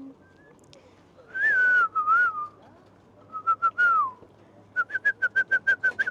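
Someone whistling a tune of gliding, wavering notes. About four seconds in comes a falling note, then a fast run of about ten short repeated notes.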